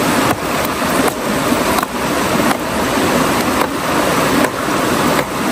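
Mountain stream rushing over rocks close by, a steady loud wash of water noise.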